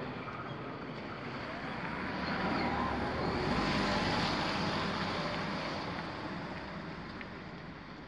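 A car passing close by, its engine and tyre noise swelling to a peak about halfway through and then fading away.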